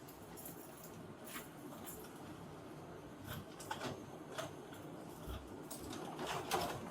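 Scattered light knocks and clicks over a steady low hiss, with a cluster of sharper knocks near the end.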